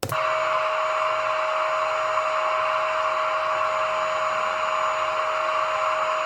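Vacuum cleaner running: a steady rushing noise with a constant whine, switched on abruptly.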